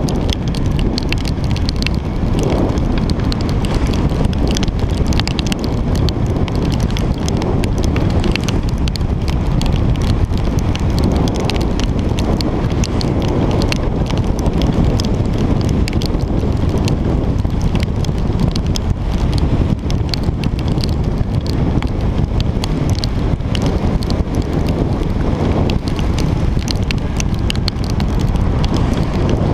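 Steady wind rumble buffeting a GoPro's microphone while riding, with a dense patter of raindrops ticking on the camera housing.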